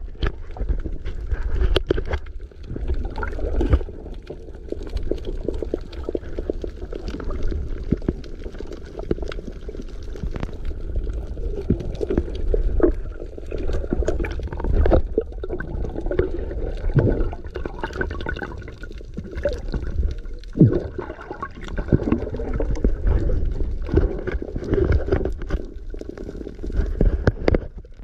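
Water sloshing and gurgling, with frequent small knocks and a steady low rumble underneath.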